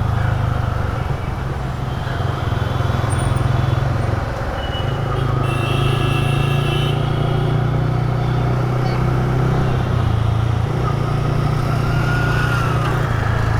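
Motorcycle engine running steadily, with a brief high-pitched tone about six seconds in.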